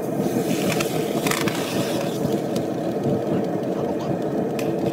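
Hot metal hissing and sizzling as it is quenched in a bucket of water, strongest in the first second and a half. Under it runs a steady mechanical drone.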